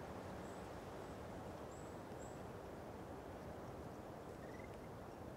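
Faint outdoor ambience on an open ridge: a steady low wind rush, with a few faint, short high-pitched chirps in the first couple of seconds and a brief rising whistle near the end.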